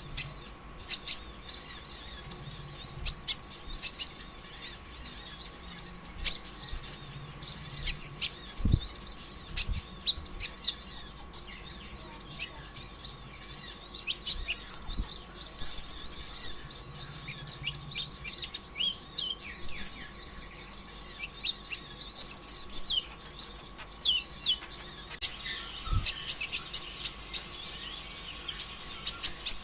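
A kolibri ninja sunbird (konin ijoan) singing a fast, dense twittering song of high chirps and sharp ticks, busier in the second half, the rapid unbroken 'konslet' style of a bird in full song. A faint steady hum lies under it, and there are two low thumps, about 9 seconds in and near the end.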